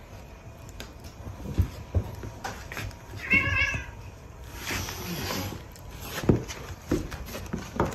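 A domestic cat meows once, briefly, about three seconds in, with a few soft knocks before and after it.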